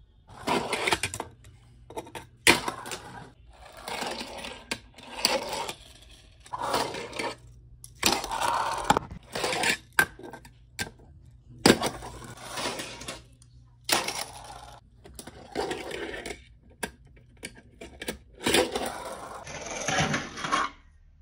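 Tech Deck fingerboard ridden on a plastic vert wall ramp: repeated short runs of its small wheels rolling and scraping over the ramp, with sharp clacks as the board lands and hits the ramp and rail.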